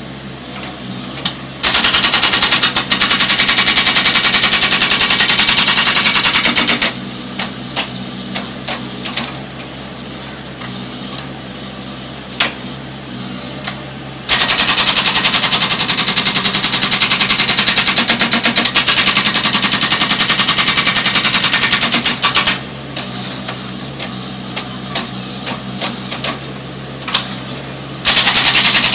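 Hydraulic breaker attachment hammering in rapid, evenly spaced blows, in three long runs: about five seconds, then about eight seconds, then starting again near the end. Between the runs the carrier machine's engine runs steadily with occasional knocks.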